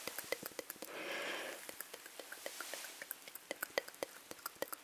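Close-microphone ASMR mouth sounds: a quick, uneven run of small wet clicks and smacks, with a breathy puff of air about a second in.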